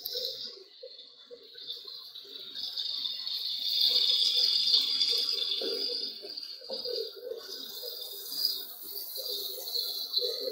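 Onions and tomatoes sizzling in hot oil in an aluminium karahi, with a plastic slotted spatula stirring and scraping across the pan. The sizzle grows a little louder about four seconds in.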